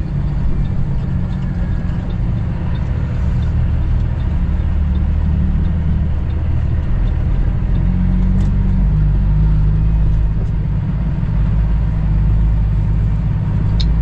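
Cummins ISX diesel engine of a 2008 Kenworth W900L running at low speed, heard from inside the cab as a steady low drone, with a faint, regular ticking over it in the first half.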